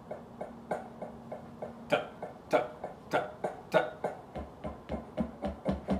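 Drumsticks on a practice pad over a marching snare: light, even taps at about four a second, with four louder strokes about half a second apart starting about two seconds in, then steady rhythmic strokes over a low, even pulse near the end as the drum break gets under way.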